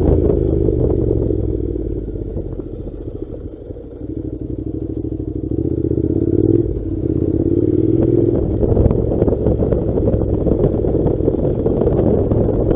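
A Honda NC700 motorcycle's 670 cc parallel-twin engine running as it is ridden on a gravel track. It eases off about three seconds in, then pulls again with rising pitch to a brief break near the middle and runs on. Loose gravel and stones clatter under the tyres in the second half.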